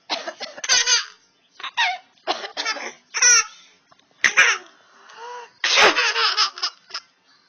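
A baby laughing in repeated bursts, set off by a person's sneezes; two sharp sneeze-like blasts come about four and six seconds in, each followed by more laughter.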